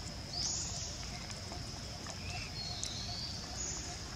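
Steady high-pitched drone of insects, swelling louder twice, over a low rumble.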